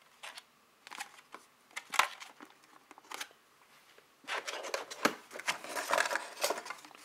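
Packaging being handled while unboxing: a few light knocks and rustles, then about three seconds of continuous rustling and crinkling from about four seconds in.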